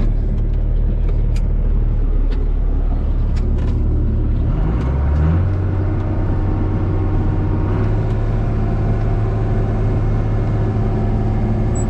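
John Deere 7000-series tractor engine running steadily, heard from inside the cab; about five seconds in its note steps up as the engine speed is raised, then holds. A few faint clicks sound over it.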